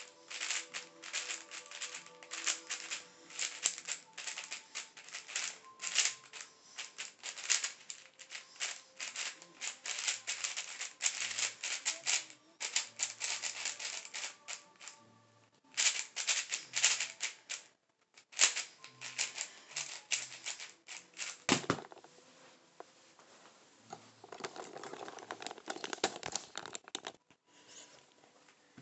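Rapid plastic clicking and clacking of a YJ MGC 4x4 magnetic speedcube being turned fast in a timed solve, in quick runs of turns broken by short pauses, with one sharper knock about three-quarters of the way through.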